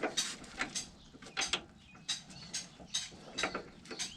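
Irregular metallic clicks and taps, about two a second, as a nut is worked onto the stud of a sway bar end link.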